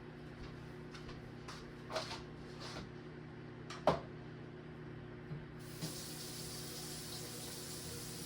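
Light clicks and knocks of things being handled, the sharpest knock just before halfway. Then a kitchen tap is turned on and runs steadily into the sink.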